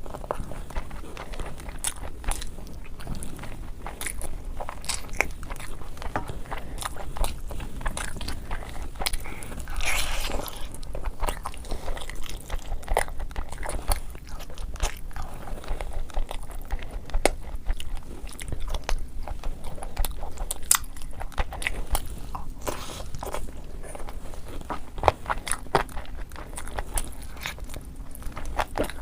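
Close-miked eating: crunchy food being bitten and chewed, with dense, sharp crunches and crackles throughout and a louder stretch of crunching about ten seconds in.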